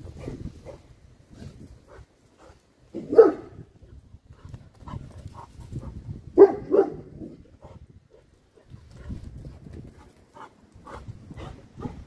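Large dog giving deep, short barks: one about three seconds in and two in quick succession about six and a half seconds in, with wind rumbling on the microphone.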